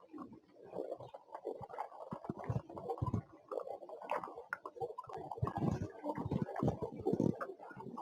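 Chewing sounds from a blueberry being eaten: a quiet, irregular run of short munches and small clicks.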